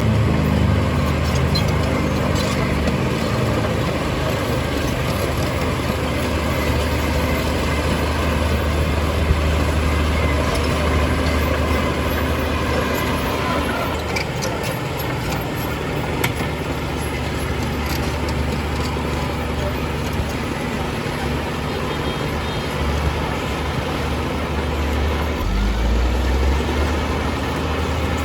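Heavy diesel earthmoving machinery running steadily, its engine note shifting in pitch about a second in and again near the end.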